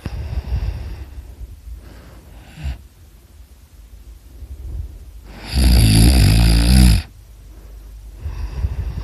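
A person snoring: softer snoring breaths at the start and about two seconds in, then one much louder snore lasting about a second and a half, starting about five and a half seconds in, and another breath beginning near the end.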